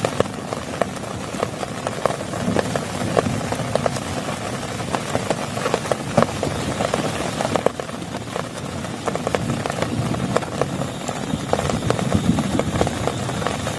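Heavy rain falling, with dense, irregular taps of individual drops striking close by.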